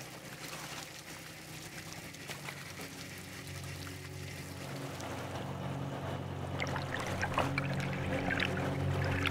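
Sea water pouring and trickling off a trawl net as it is hauled up out of the sea, over a steady low hum that gets louder through the second half.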